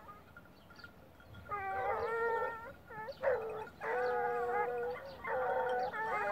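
A pack of Ariégeois scent hounds baying as they run: several voices overlapping in about four long bouts of drawn-out cries.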